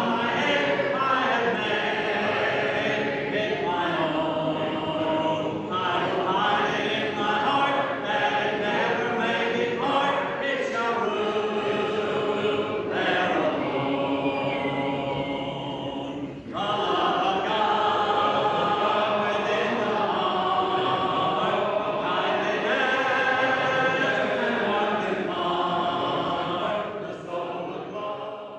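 A church congregation singing a hymn a cappella, many voices together led by a song leader with no instruments. There is one short break past the middle, and the singing fades out at the very end.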